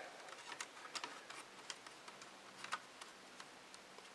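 Faint, irregular small clicks and taps of plastic, metal and wire as fingers work the internal wires and parts of an opened Dell Inspiron 1420 laptop back into place.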